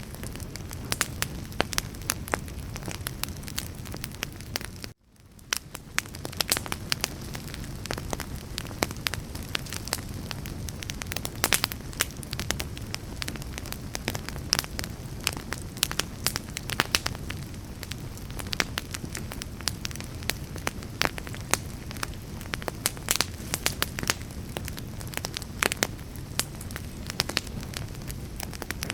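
Wood fire burning: a steady low rumble with frequent sharp crackles and pops. About five seconds in the sound cuts out for a moment and fades back in.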